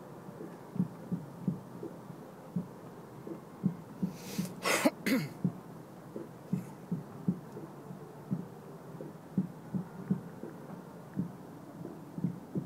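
Small wavelets knocking irregularly against the hull of a small motorboat: low, soft knocks about once or twice a second. A short, louder double burst of hiss comes about five seconds in.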